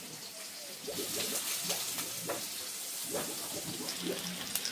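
Food frying in hot oil in a pan: a steady sizzle that gets louder about a second in, with a few light knocks.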